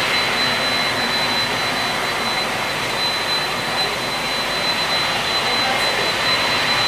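Boeing 767-300ER's twin turbofan engines running at low taxi thrust as the jet rolls slowly on the runway. It is a steady rushing noise with a thin high whine held at one pitch.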